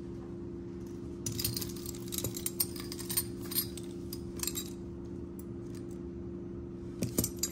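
Metal costume jewelry clinking and jangling as pieces are handled in a pile: a run of light clicks for a few seconds, then a few more near the end. A steady low hum sits underneath.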